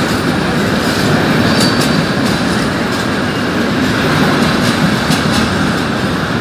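Freight train of covered goods wagons rolling past on a station track under an arched train-shed roof: a steady rolling noise of steel wheels on rail, with occasional faint clicks.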